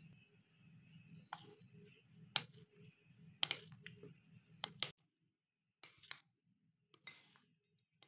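A spoon clinking and scraping against a ribbed glass bowl as cocoa powder is stirred into cake batter: several sharp clinks in the first five seconds, then softer scrapes.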